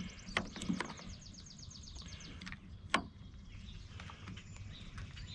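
A high, fast chirping trill that fades out about two seconds in, with a few light clicks and taps of small parts and tools being handled; the sharpest click comes about three seconds in.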